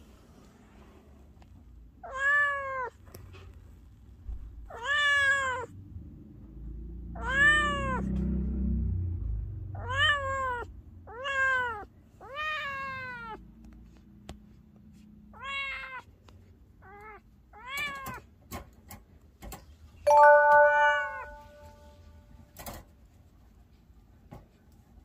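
Young tabby-and-white cat, confined to a wire cage while a broken leg heals after surgery, meowing over and over, about ten meows a couple of seconds apart. A few sharp clicks come in the last third.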